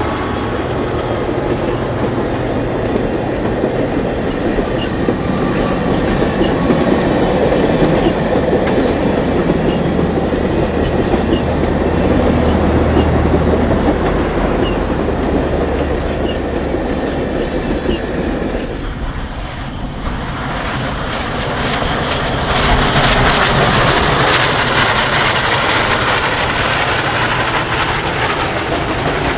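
Union Pacific 4014 Big Boy's excursion train rolling past with a loud, continuous rumble and steel wheels clicking over the rail joints. The sound drops briefly about two-thirds of the way through, then comes back as loud as before.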